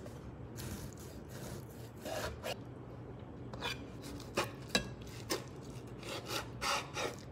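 Kitchen knife slicing through cooked beef and lamb on a wooden cutting board: a run of short, irregular scraping strokes as the blade saws through the meat and meets the board.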